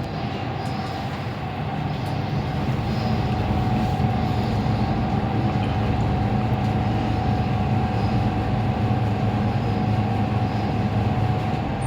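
Passenger lift car travelling in its shaft: a steady low rumble and hum with a constant whine, swelling slightly in the first few seconds and then holding steady.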